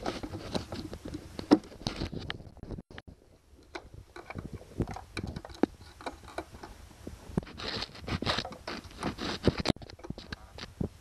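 Hands working a small locking pin in the linkage of a 1999 Honda 8 hp four-stroke outboard: irregular small clicks, taps and scrapes, with a longer stretch of scraping about two-thirds of the way through.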